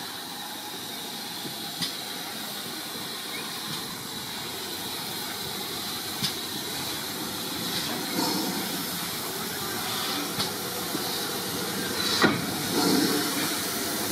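Steam hissing steadily from a standing GWR 2-6-2T prairie tank locomotive, with a few brief sharp clicks, the loudest near the end.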